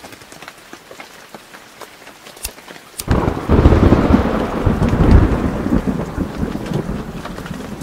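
Rain falling with scattered drops ticking, then about three seconds in a loud rumble of thunder that slowly dies away.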